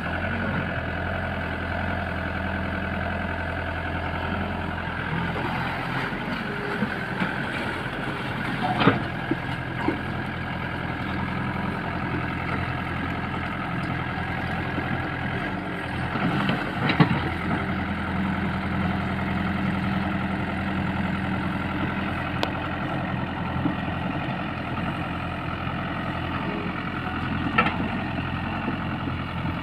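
Diesel engines of heavy earthmoving machinery running steadily, with three sharp metallic clunks spread across the stretch, typical of a loader bucket working.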